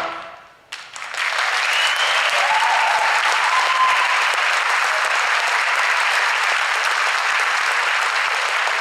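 An a cappella choir's final chord dies away, and about a second in the audience breaks into loud, steady applause, with a voice briefly calling out within it.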